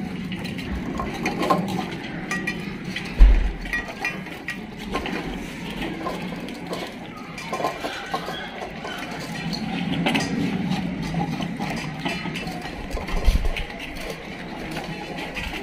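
Dogs eating from stainless steel bowls, with scattered small clinks and ticks of metal bowls moved on a tiled floor. A low thump about three seconds in, and another near the end, are the loudest sounds.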